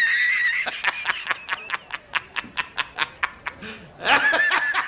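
A man laughing hysterically: a long high shriek of laughter, then a fast run of ha-ha-ha pulses about six a second, and another drawn-out shriek a little before the end.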